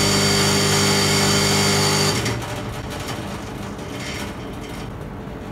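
Steady mechanical hum and buzz of a small motor running, a few fixed low tones with a thin high whine on top, that cuts off about two seconds in. A quieter hiss follows.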